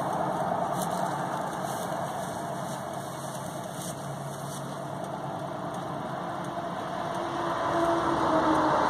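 Steady vehicle engine hum heard from inside a car parked on a highway shoulder, growing louder near the end.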